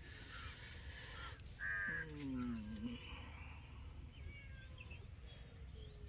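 A crow caws once about two seconds in. A short low call falling in pitch follows it, and faint bird chirps sound in the background.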